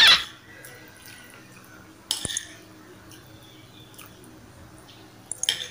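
Metal spoon scraping and clinking against a plate of rice and beef: a loud scrape at the start, a sharp clink about two seconds in, and another short scrape just before the end.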